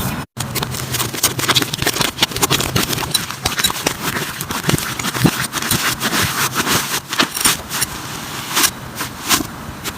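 Slime being squeezed and pressed by hand, making a dense run of small crackles, pops and sticky clicks. There is a short break in the sound just after the start.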